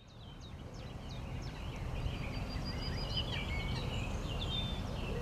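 Woodland birdsong: several small birds chirping and trilling over a low rumble. It fades in over the first second or so.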